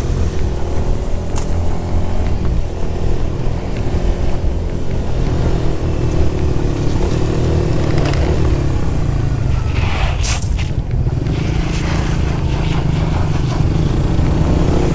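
Motorcycle engines running hard at speed, their pitch rising and falling with throttle and gear changes, over a heavy low rumble. A brief rush of noise about ten seconds in.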